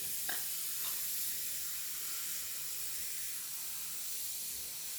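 Steady hiss of food cooking on the stove, with one faint knock about a third of a second in.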